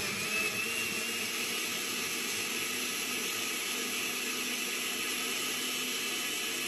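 Countertop blender running steadily, its motor whining over the churn of two cut tomatoes being puréed into a liquid.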